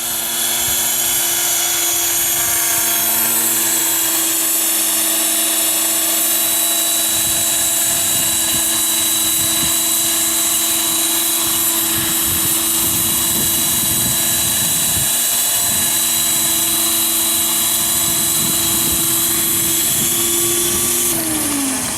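Radio-controlled 500-size scale Little Bird helicopter running, a steady rotor and motor whine. Its pitch drops about a second before the end as it throttles down.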